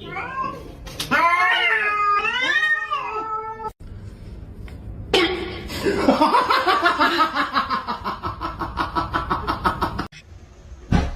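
A cat yowling in long, wavering, drawn-out meows for about four seconds. After a short break comes a run of fast, repeated pulsing sounds lasting several seconds.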